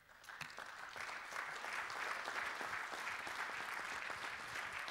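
Audience applauding, many people clapping together. The applause swells up over about the first second and then holds steady.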